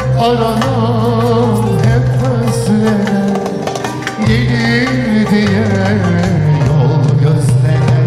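Male soloist singing a Turkish art music song in makam Nihavend to live instrumental accompaniment, with wavering melodic lines over a steady bass.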